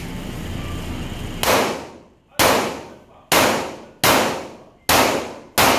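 Six pistol shots from a Glock 17, fired one at a time at a steady pace of a little under one a second, starting about a second and a half in, each followed by a short echo.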